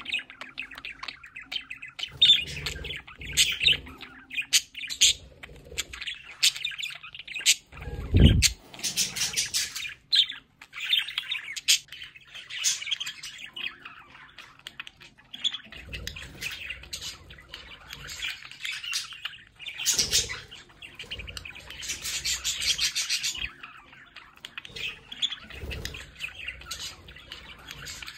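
Budgerigars chirping and warbling almost without a break, a flock's chatter, with a few low thuds, the loudest about eight seconds in.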